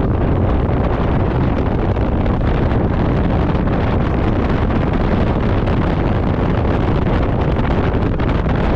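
Steady wind rushing over the microphone of a camera on a moving motor scooter, mixed with the scooter's running and road noise.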